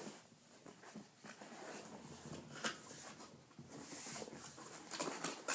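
Cardboard box packaging being handled and opened: irregular rustling and scraping with a few sharp clicks, busier near the end.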